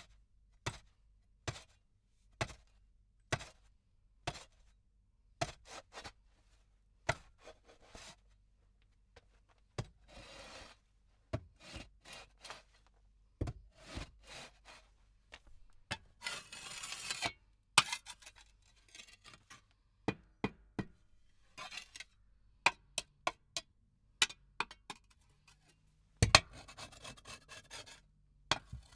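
Faoda (Indian hand hoe) working: a run of sharp blade strikes, about one a second at first and then more irregular, broken by a few longer scraping strokes.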